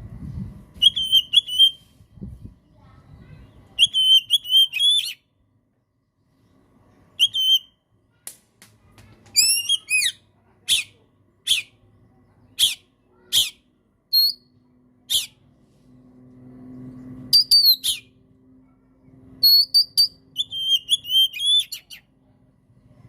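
Oriental magpie-robin (kacer) singing. Short, high trilled phrases come again and again, and in the middle there is a run of sharp, loud single notes a little under a second apart, mixed with a few clear whistles.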